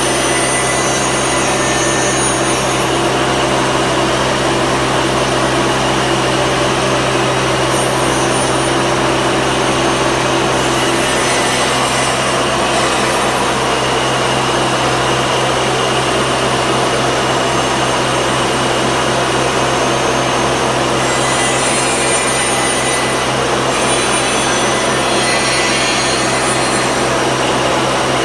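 Robotic deburring cell at work: a spindle grinding and cutting slag and burrs off a metal casting, a loud steady grinding noise over a constant machine hum.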